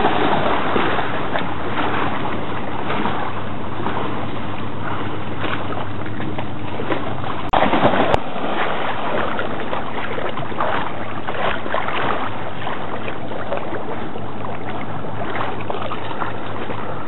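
A dog splashing as it wades and bounds through shallow lake water, with waves washing in against the shore. There is a louder burst of splashing about halfway through.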